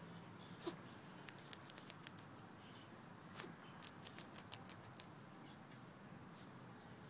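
Patterdale terrier puppy digging and rooting in loose sand: faint, irregular scratching ticks of paws and nose in the sand, over a low background hum.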